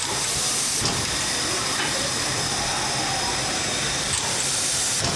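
Steam hissing from the running gear of steam locomotive No. 1003, with louder surges of hiss at the start and again about four seconds in.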